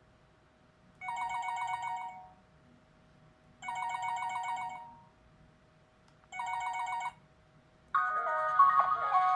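Huawei MomoDesign MD Touch mobile phone playing a ringtone through its loudspeaker: a quick trill of electronic notes lasting about a second, sounded three times with pauses between. Near the end a different, more melodic ringtone starts.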